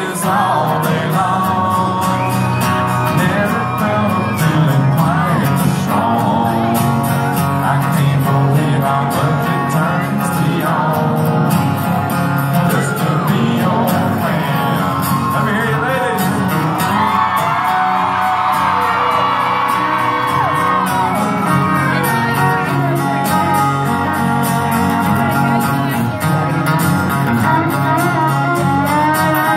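Live country music heard from within the crowd: a male lead singer with acoustic guitar and fiddle, the band playing steadily throughout.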